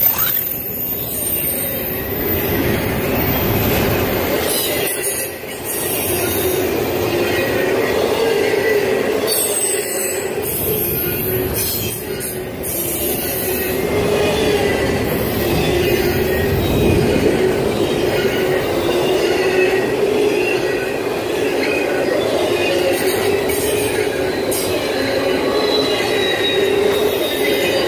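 Double-stack intermodal freight train rolling past, its steel wheels running on the rail with a steady squeal held through the passing, and a few sharp clicks from the cars about a third of the way in.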